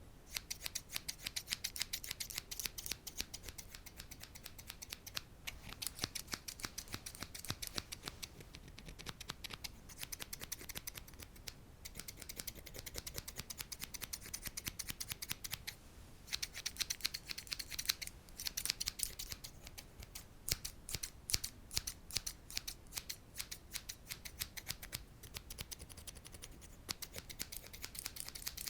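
Rapid, light ASMR tapping: a fast run of crisp clicks, broken by a few short pauses.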